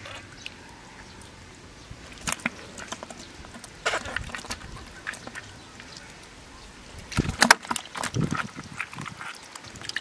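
Bare feet and hands squelching and splashing in thick muddy water at the bottom of a dug pit: a few short wet squelches, with the loudest cluster about seven seconds in.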